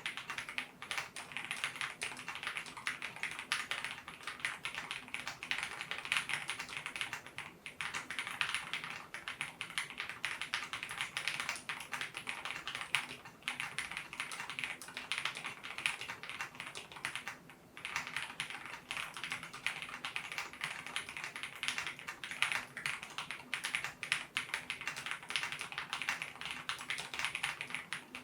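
Fast, continuous typing on a Zoom65 mechanical keyboard: lubed JWK linear switches on a polycarbonate plate in an aluminium case, with doubleshot keycaps. The rapid keystrokes break off briefly a few times, about 7, 13 and 17 seconds in.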